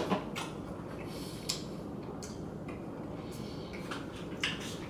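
A few faint, irregular clicks and light taps from food being handled, over a quiet steady room hum.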